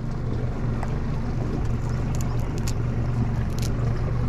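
115 hp outboard motor on a fishing boat running at a steady pitch, a constant low hum.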